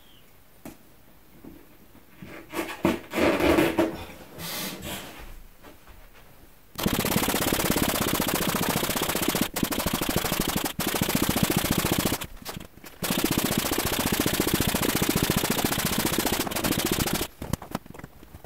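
Handling and rustling as a pump hose is fitted to an inflatable dinghy's valve. About seven seconds in, an electric air pump starts and runs loudly with a fast, even rattle for about ten seconds, with a few short breaks, inflating a dinghy chamber through the hose. It stops shortly before the end.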